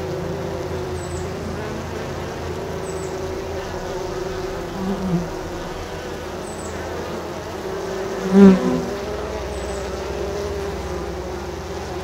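Honey bees buzzing at the hive entrance: a steady hum of many wings. Single bees fly close past and the buzz briefly swells, about five seconds in and again, loudest, at about eight and a half seconds.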